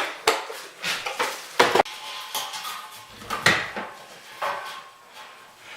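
Metal drill bits clinking and a drill bit case clicking as a 5/16 bit is picked out and handled: a handful of sharp, uneven clicks and clinks.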